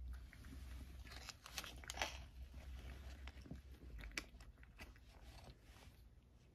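A cat crunching and chewing a small dry Ciao Churu Bits treat: a run of quick, sharp crunches, loudest about two seconds in, thinning out toward the end.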